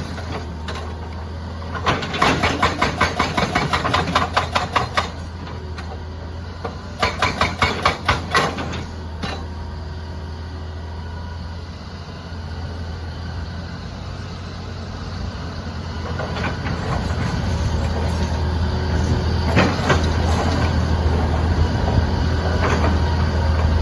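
Excavator's hydraulic breaker hammer pounding in two bursts of rapid blows, each lasting a few seconds, over the steady running of the diesel engine. Later the engine runs louder, with a few single knocks.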